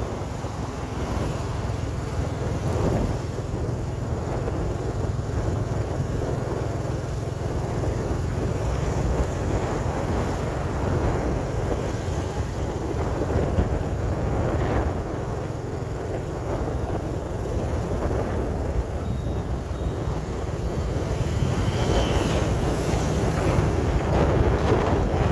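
Wind buffeting the microphone while travelling along a busy street, over a steady wash of traffic noise.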